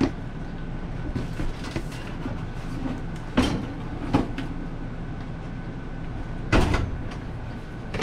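Knocks, clunks and scraping as a bulky Dometic RM1350 RV absorption refrigerator is slid out through the doorway and down the entry step, with sharp knocks about three and a half and four seconds in and the loudest thump about six and a half seconds in. A steady low hum runs underneath.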